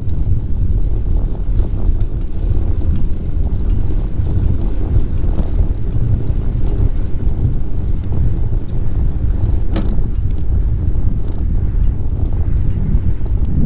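Wind buffeting the microphone of a camera carried on a moving bicycle: a steady low rumble, with one sharp click about ten seconds in.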